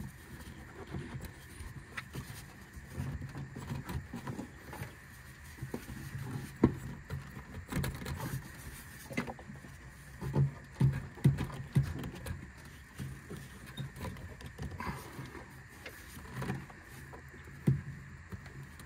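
Irregular knocks, clicks and rubbing from a rubber air intake hose being worked back onto an engine's throttle body, with a few louder thumps.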